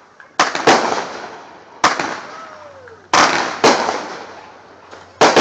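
Fireworks going off in a series of six sharp bangs, spaced irregularly over about five seconds, each one dying away in a short echo.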